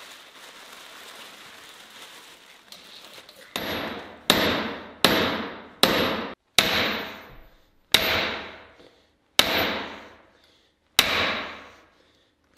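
Hammer blows on a steel driver, pushing a worn bronze bushing out of a power hammer's cast-iron pitman: eight ringing metal strikes, each with a short ring. They come a little under a second apart at first, then further apart. Soft rustling comes before them, for about the first three seconds.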